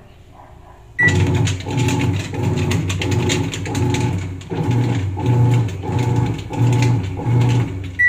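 Whirlpool top-load automatic washing machine starting a cycle: a single short beep from the control panel about a second in, then the machine's motor working in short rhythmic strokes, a bit under two a second. The run ends in the machine's EC error code.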